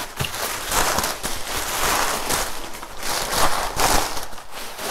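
Cardboard box being cut and pulled open and its packing paper handled: a run of scraping, tearing and crinkling sounds coming in repeated swells about once a second.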